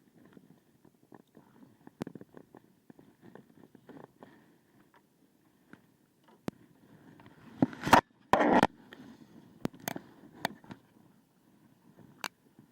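Scattered clicks and knocks from handling on a kayak, with a loud cluster of knocks and a brief rustle about eight seconds in, then a few single knocks.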